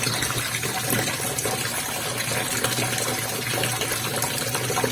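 Tap water running steadily through the fill hose into the tub of a semi-automatic twin-tub washing machine, with a steady low hum underneath.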